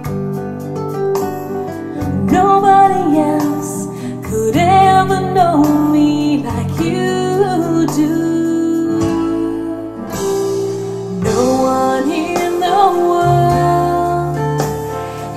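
A song with a singing voice over guitar and steady accompaniment, played back through a vacuum-tube amplifier and loudspeakers and picked up by a microphone in the room.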